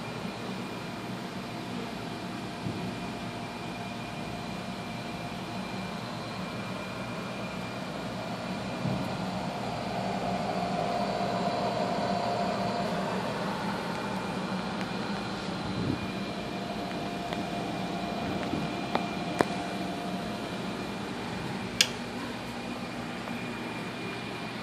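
Steady whirr of the cooling fan on an HTS PAL autosampler's Stack Cooler, with a few faint steady tones in it. It grows louder for a few seconds about ten seconds in, and a few sharp clicks come near the end.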